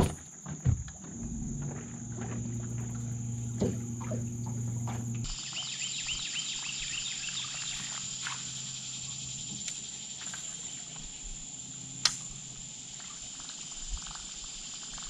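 Steady high-pitched insect drone, with a low steady hum under it for the first five seconds, a run of rapid chirping around six to eight seconds in, and one sharp click about twelve seconds in.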